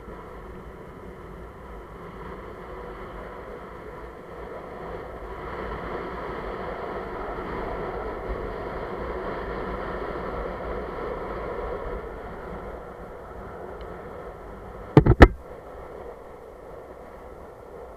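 Longboard wheels rolling fast on asphalt with wind rushing over the microphone, growing louder through the middle, then two sharp knocks in quick succession near the end.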